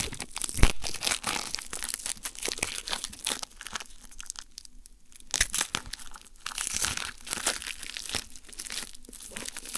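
Product packaging being torn open and crinkled by hand: a dense run of crackling rustles with a short lull about halfway, and one sharper knock just under a second in.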